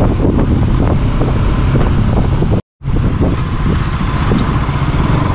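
Motorbike engine running steadily while riding, heard from the rider's seat with wind noise on the microphone. The sound drops out completely for a split second about two and a half seconds in.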